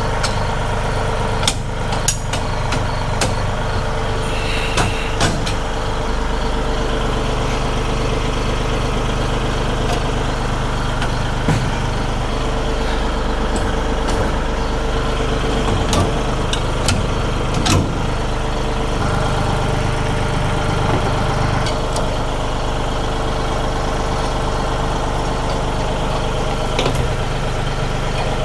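Massey Ferguson tractor engine idling steadily, with scattered sharp clanks and knocks from disconnecting the wood chipper's hitch.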